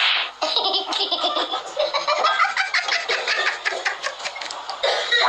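People laughing in quick, choppy bursts, starting abruptly.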